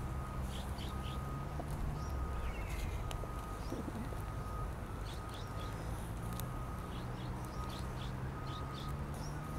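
Birds chirping outdoors, short high chirps and a short note repeated over and over at one pitch, over a steady low hum.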